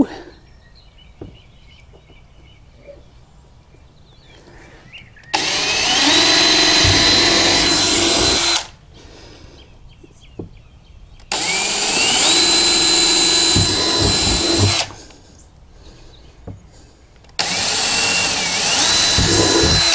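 Power drill set to its second speed, pre-drilling screw holes for a hatch ring in a kayak deck. There are three runs of about three seconds each. Each spins up to a steady whine, and in the third the pitch dips partway through and climbs again.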